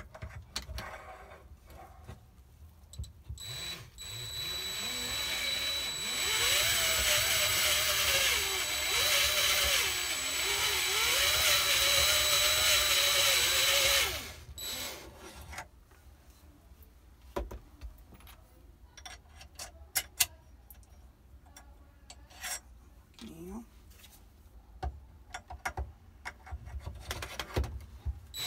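DeWalt cordless drill turning a cutter slowly into a steel pistol slide: the motor runs steadily for about ten seconds, its pitch wavering as the cutter bites, then stops. Scattered sharp clicks and a brief spin of the drill follow.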